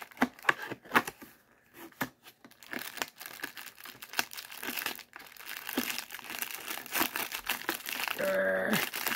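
A perforated cardboard advent-calendar door tearing open with a series of snaps, then a plastic lure packet crinkling as it is pulled out of its compartment.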